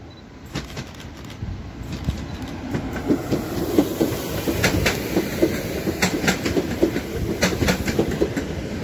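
Newag Impuls EN63A electric multiple unit pulling into the station and passing close by. Its wheels click over the rail joints in quick pairs over a steady rolling rumble, growing louder over the first few seconds as it nears.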